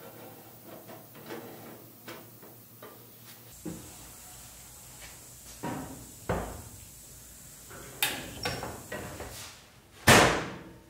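Metal and glass door of a smoker cabinet being shut and handled: light clicks at first, then heavier knocks, and a loud bang near the end.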